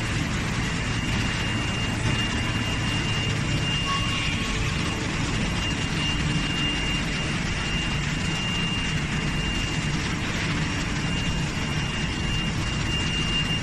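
Industrial high-pressure parts washer and dryer running: a steady machine noise with a low hum and a thin, steady high whine.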